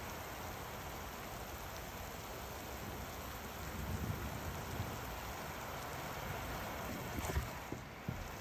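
Steady rain from a thunderstorm, an even hiss with a few brief low thumps.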